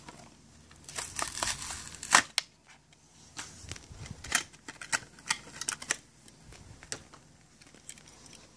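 Plastic blister pack and cardboard backing of a Hot Wheels car crinkling, cracking and tearing as it is pulled open by hand, in an irregular run of sharp crackles with the loudest snap about two seconds in.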